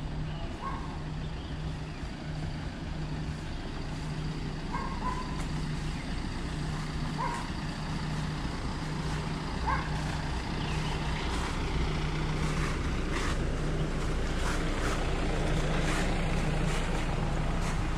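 A large vehicle's engine idling with a steady low hum, with a short high chirp repeating every two to three seconds.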